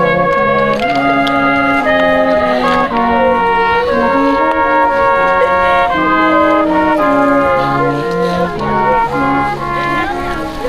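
Slow brass music: trumpets and trombones play long held chords that change about once a second.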